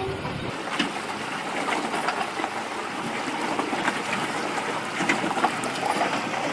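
Steady rushing water noise with small splashes and clicks scattered through it.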